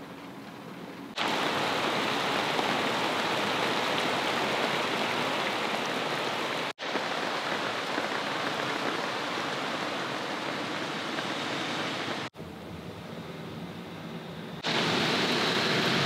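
Steady rain falling, heard in a few short clips joined by abrupt cuts; it is quieter in the first second and a half.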